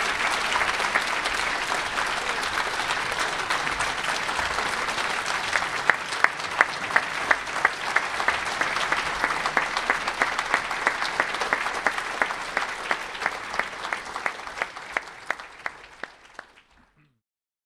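Large audience applauding. About six seconds in, a steady beat of sharper claps, about three a second, stands out above the general applause, and the applause fades out near the end.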